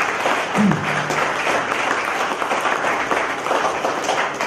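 Audience applauding: dense, steady clapping, with one voice calling out briefly less than a second in.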